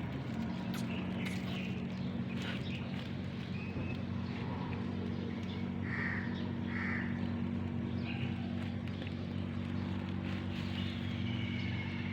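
A steady low mechanical hum, with scattered bird calls over it and two short calls about a second apart midway.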